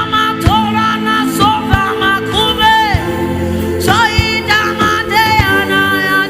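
Gospel worship music: a voice sings long, wavering, bending notes over sustained backing chords, with a low drum hit about once a second.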